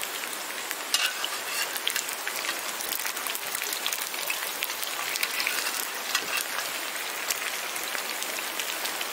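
Green onion pancakes (pajeon) sizzling in oil on a griddle pan over a portable gas stove: a steady frying hiss with many small crackles.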